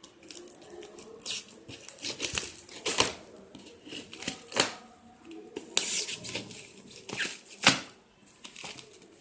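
A cardboard shipping box being torn open by hand: irregular ripping and crinkling of packing material and cardboard, with a few sharp knocks.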